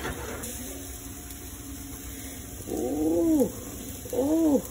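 A cat meowing twice, about three seconds in and again near the end, each meow rising and then falling in pitch.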